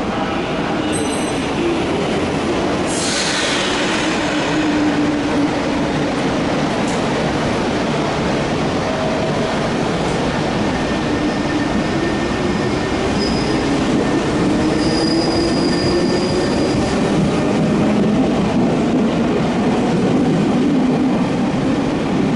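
Meitetsu 6500 series electric train pulling out of an underground station: a steady rumble of wheels on the rails with a motor tone that rises slowly in pitch as it gathers speed, and a brief hiss about three seconds in.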